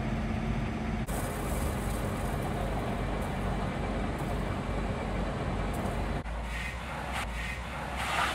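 Fire engines' engines running with a steady rumble, the sound changing abruptly about a second in and again about six seconds in. Near the end, uneven surges of hissing come over a low hum.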